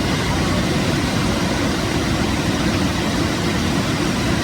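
River water flowing, a steady rushing noise heaviest in the low end.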